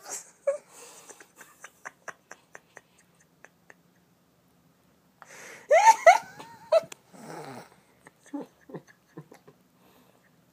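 Hiccups: a scatter of short sharp catches and clicks, with a brief high-pitched squeaky vocal sound about six seconds in, which is the loudest moment, and a few more low hiccups after it.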